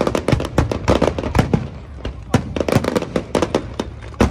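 Aerial firework shells bursting in a dense barrage: many sharp bangs a second in irregular succession, with the loudest near the start and about four seconds in.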